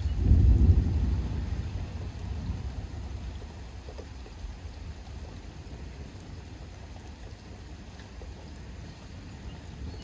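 Distant thunder: a low rumble that builds within the first second and dies away over the next few seconds, leaving a steady low background rumble.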